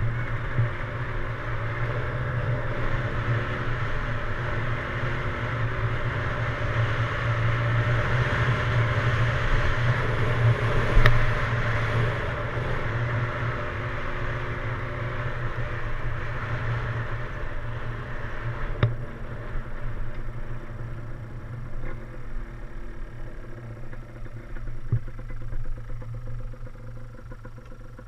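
Yamaha DT175's single-cylinder two-stroke engine running while the bike is ridden, its pitch rising and falling with the throttle. Louder through the first half, easing off in the last third, with a sharp click about eleven seconds in and another near nineteen seconds.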